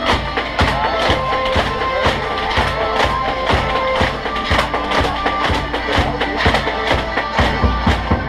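Background music with a steady drum beat under held instrumental notes.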